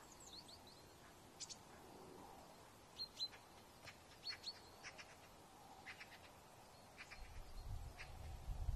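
Faint, scattered short chirps of small birds, a few sweeping downward in pitch, with a low rumble coming in near the end.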